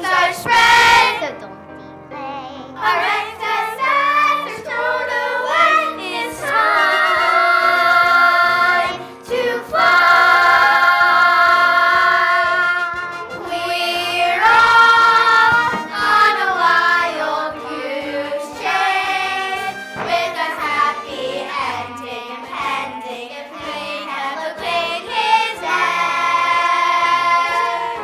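Young voices singing a musical theatre song with instrumental accompaniment, with several long held notes.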